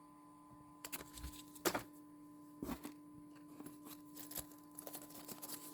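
Scattered light clicks and taps of small electronic parts being handled, the strongest about a second and a half in and again near three seconds, over a faint steady electrical hum.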